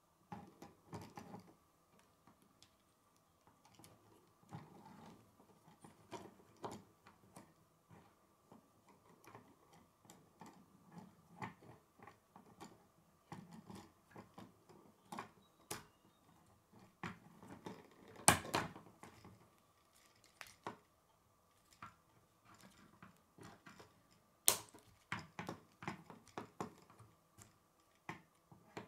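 K'nex plastic rods, connectors and gears clicking, rattling and snapping together as they are handled and fitted, in irregular small clicks with two sharper snaps, one past the middle and one about three-quarters of the way through.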